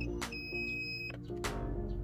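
Background music with regular percussive hits. A high, steady electronic beep lasting under a second sounds about a third of a second in.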